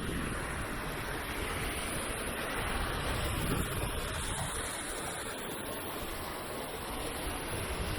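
Steady rush of water from the falls or creek, with wind buffeting the microphone in uneven low gusts.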